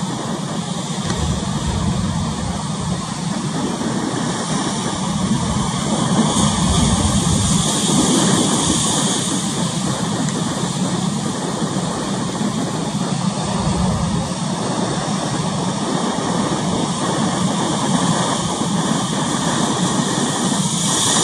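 Steady rushing noise of wind and a choppy sea, with a few low surges.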